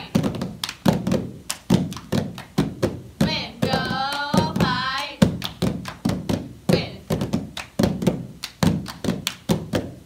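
Several people clapping and slapping their hands down on a padded mat in a quick, steady rhythm of about three strokes a second for a seated cheer. Voices chant in unison for a second or two midway through.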